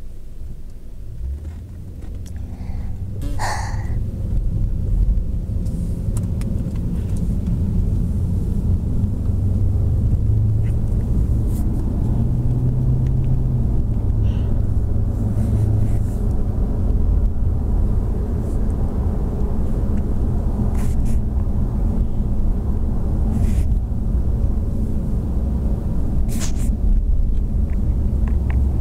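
Low, steady road-and-engine rumble of a Mercedes-Benz car being driven, heard from inside the cabin; it grows louder over the first five seconds and then holds. A few brief rubs and knocks come from the phone being handled.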